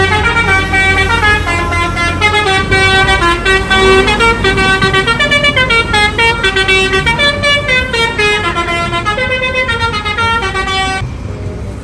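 Bus telolet horn, a multi-tone musical air horn, playing a quick tune of stepping notes over the low rumble of the bus's engine. The tune stops shortly before the end.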